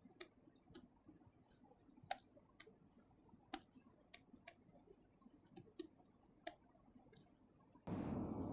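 Faint, irregular clicks and taps of a stylus or pen writing on a tablet surface, with a short, louder burst of rustling noise near the end.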